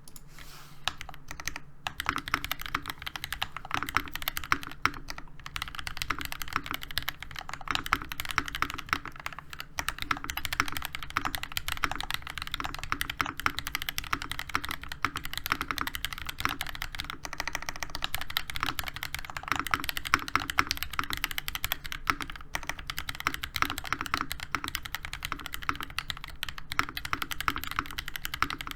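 Continuous typing on a NovelKeys NK87 mechanical keyboard with hand-lubed Gateron Oil King linear switches, a brass plate and ABS Cherry-profile keycaps: a dense, steady stream of keystrokes.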